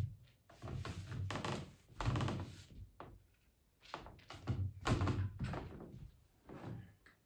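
A series of dull thumps, each with a short rustle, about five of them a second or so apart.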